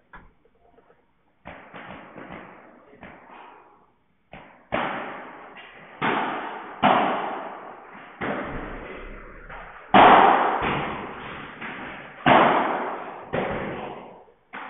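Padel rally: the ball struck by rackets and rebounding off the court walls, a string of sharp pops every half second to second, each trailing off in the hall's echo. The loudest hit comes about ten seconds in.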